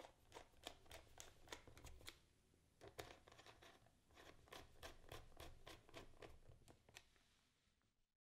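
Faint, scattered clicks and scrapes of a small screwdriver turning the screws that hold the service cover of a testo 340 flue gas analyser.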